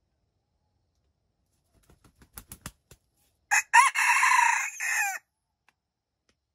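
A red junglefowl rooster gives one short crow, the loudest sound here, after a quick run of soft wing flaps that grow louder.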